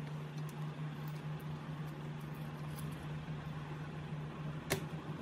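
A steady low hum under a faint hiss, with a few light ticks and one sharp click about half a second before the end.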